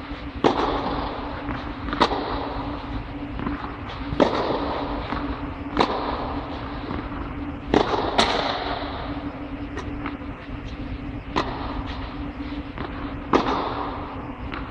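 Tennis racket strings hitting a ball in a baseline rally, a sharp crack about every two seconds, each with a short echo. A steady low hum runs underneath.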